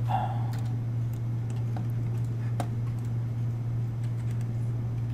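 Steady low hum, with a few faint, sharp computer-mouse clicks scattered through it.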